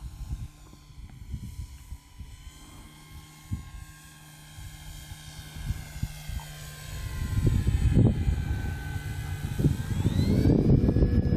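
Electric motor and propeller of an E-flite Carbon-Z Cessna 150 RC model plane whining in flight, the pitch sliding slowly down and then rising sharply near the end. Gusty wind buffets the microphone from about halfway through.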